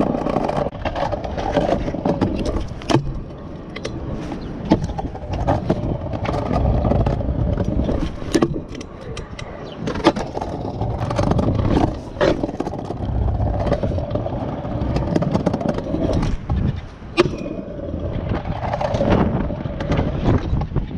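Stunt scooter wheels rolling over pavement, with repeated sharp clacks and scrapes from the deck and wheels hitting and sliding on the ground.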